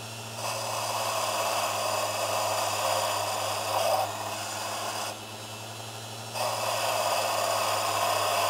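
Lathe turning a cast-iron piston while a small high-speed grinding point works into its end, giving a steady motor hum, a high whine and a rasping grind. The grinding noise drops for about a second near the middle and then comes back.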